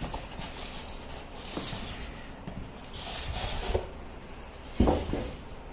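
Rustling and scraping of the microwave's cardboard and foam packing as it is handled, with a sharp knock a little before the end.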